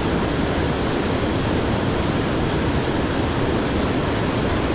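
Steady rushing of flowing creek water, an even noise that holds at one level throughout.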